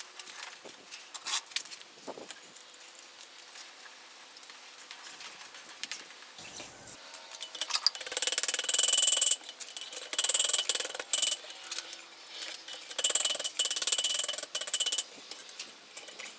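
Hand file rasping on mild steel in a run of strokes about a second long, the workpiece ringing faintly under the file, after a few light metal clinks.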